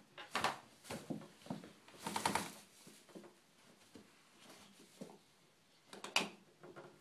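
Pet toucan pecking: irregular taps and scuffs, with a brighter burst about two seconds in and another near the end.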